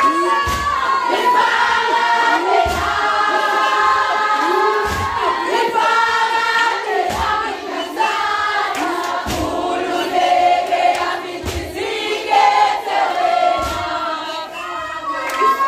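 A large group of girls and young women singing a Zulu song together, with a low thud about once a second keeping time.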